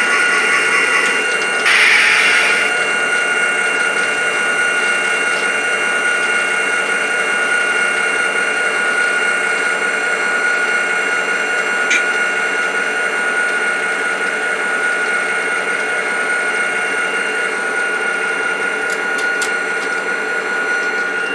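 Model train locomotives running on the layout track: a steady electric motor whine over the rumble of wheels on rail. There is a brief louder rush about two seconds in.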